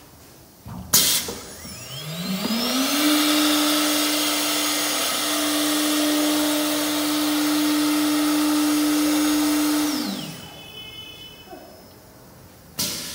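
Multi-spindle CNC wood router: a spindle spins up with a rising whine, runs at a steady whine with a loud rushing hiss for about seven seconds, then winds down quickly. A short sharp burst of hiss sounds just before the spin-up, and another near the end.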